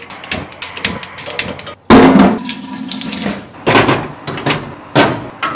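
Kitchen clatter around a gas range: a quick run of clicks and knocks, then a louder rushing clatter lasting about a second and a half, starting about two seconds in, and more knocks near the end.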